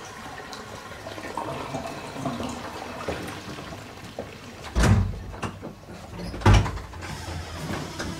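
Rustling and clatter with two heavy thumps, about five and six and a half seconds in.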